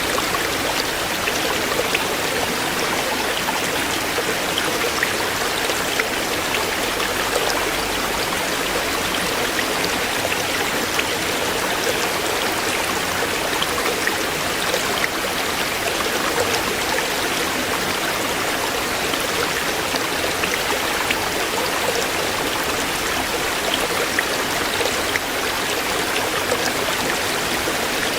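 Shallow stream running over stones, a steady rush of water with small splashes and trickles throughout.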